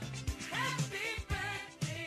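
A soul-funk song playing: a singing voice over a bass line and a drum beat of about two strokes a second.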